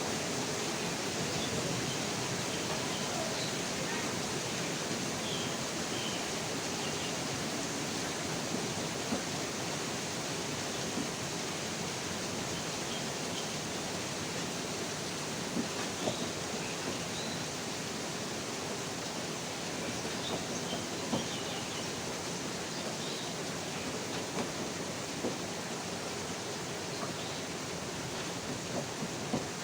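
Steady rain falling, an even hiss, with scattered sharp taps of drops.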